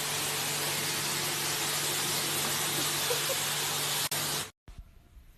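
A loud, steady hiss with a faint low hum under it, cutting off abruptly about four and a half seconds in.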